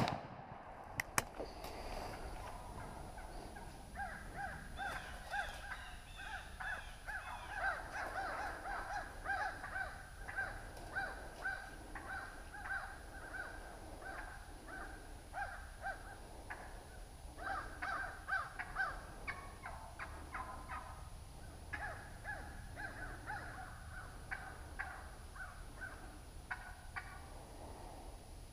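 A flock of wild turkeys calling: many short, repeated calls overlapping, continuing without letup. The flock is stirred up just after a shotgun shot dropped one of the hens, with a couple of clicks about a second in.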